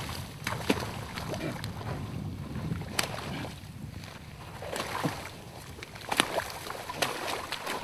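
Icy lake water sloshing and splashing around a man who has broken through the ice, with scattered short knocks.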